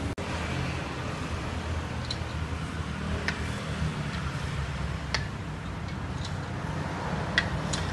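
Loosened wheel nuts being unscrewed by hand from a car's wheel studs, with a handful of sharp, separate clicks over a steady low background rumble.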